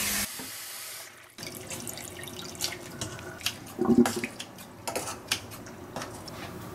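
Tap water running into a stainless steel saucepan of dried pollack strips, with a few short clinks of kitchen scissors against the pot.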